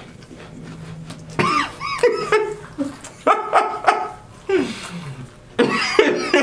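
Two men laughing hard in repeated short, high bursts, starting about a second and a half in.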